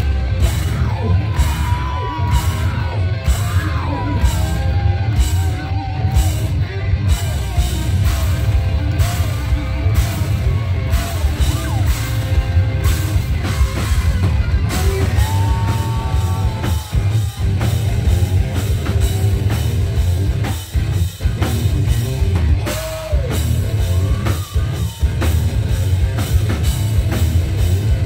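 Live heavy rock band playing loudly: distorted electric guitar, bass guitar and a drum kit with steady beats and cymbal strikes.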